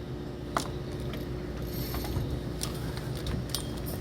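Spinning or baitcasting fishing reel ratcheting as a hooked hairtail is wound in, with scattered clicks over a steady low hum.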